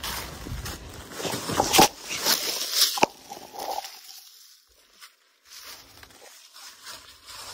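Dry fallen leaves crunching and rustling under footsteps and a hand scrambling through leaf litter, with two sharp loud crunches in the first three seconds, then only faint rustles.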